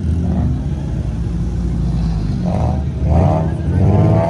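Car engine running with a deep, steady low rumble, and a few short rises in pitch in the second half as the throttle is blipped.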